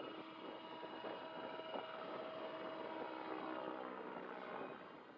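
Radio-controlled 3D helicopter flying overhead, its rotor and motor whine shifting up and down in pitch as it manoeuvres.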